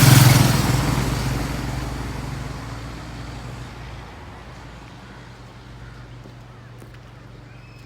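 A road vehicle passing close by on the road, loudest at the start and fading away over about four seconds.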